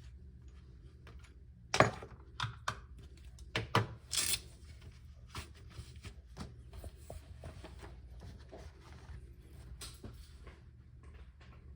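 Handling noises at the inside of an electronic safe lock: several sharp clicks and knocks, the loudest about two seconds in, then lighter tapping and rattling.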